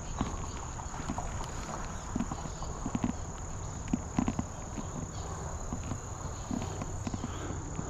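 Steady high-pitched drone of crickets, with irregular soft knocks and clicks scattered over it, the loudest cluster about three to four seconds in.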